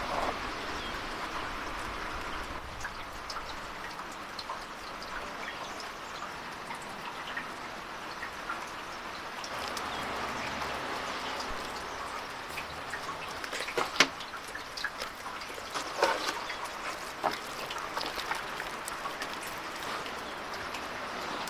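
Wet squelching and slapping of hands rubbing a thick marinade into a raw goat carcass in a wooden bowl, with a few louder slaps about two-thirds of the way through.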